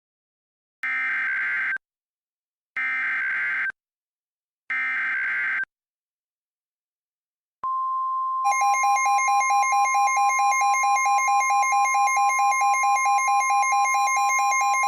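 Emergency Alert System digital header: three harsh, buzzy data bursts about a second long and a second apart. About two seconds after the last burst a steady weather-radio attention tone starts, joined a second later by a rapidly pulsing beep. Together they announce an incoming tornado warning.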